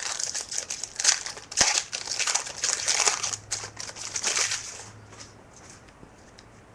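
Foil wrapper of a Topps Chrome card pack being torn open and crinkled by hand: a rapid, dense crackling that dies away about five seconds in.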